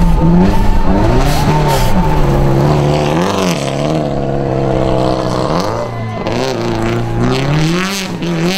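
Rally car engines run hard through corners, the pitch repeatedly climbing and dropping as the drivers work the throttle and change gear, with a brief dip about six seconds in.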